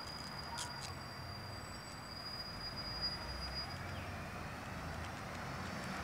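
Outdoor park ambience: a low rumble that swells slightly partway through, a thin steady high tone that fades out about four seconds in, and two sharp clicks under a second in.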